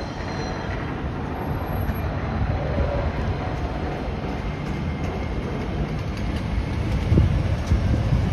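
Diesel city bus idling at a stop, its engine then running up louder about seven seconds in as the bus pulls away.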